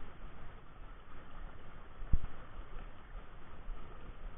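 Steady rush of a shallow, fast-flowing river, with an uneven low wind rumble on the microphone. A single dull thump about two seconds in is the loudest sound.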